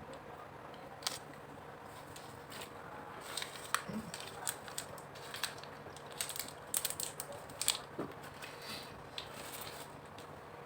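Small gummy candy and its plastic packaging handled: scattered light crinkles and clicks, busiest in the middle.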